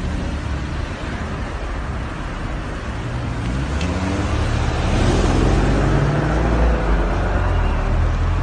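Motorway traffic noise: a steady rumble and hiss of cars and tyres, growing louder about halfway through.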